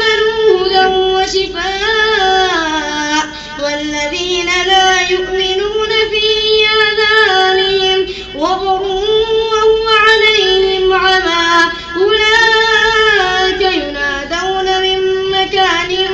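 Melodic Quran recitation (tartil) in Arabic by the imam leading the prayer: a single high voice chanting long, held phrases that bend up and down in pitch, with a short break for breath every three to four seconds.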